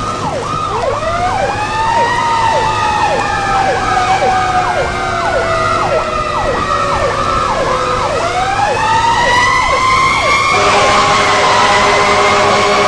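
Fire apparatus sirens: an electronic yelp cycling about three times a second over a mechanical wail that winds up, slowly falls, then winds up again. About ten seconds in, a steady multi-tone horn blast comes in over them.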